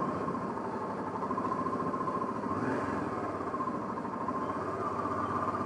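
Honda Africa Twin's parallel-twin engine running steadily at low road speed, heard from the rider's seat.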